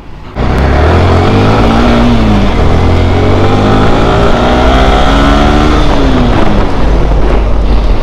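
Yamaha R15 motorcycle's single-cylinder engine pulling away under acceleration: its pitch climbs, drops at a gear change about two and a half seconds in, climbs again, then falls away near the end as the throttle eases.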